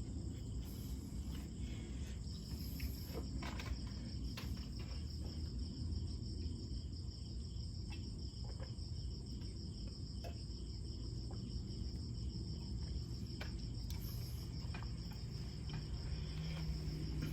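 Insects chirring steadily in a high, even drone, with scattered small clicks over a low background rumble.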